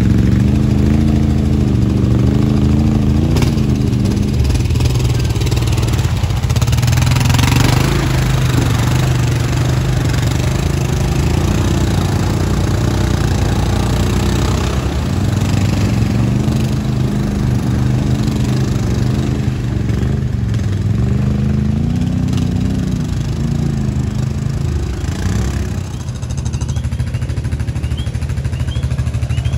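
ATV engines running, their pitch rising and falling as the riders throttle through a shallow muddy creek, with water splashing around the tyres.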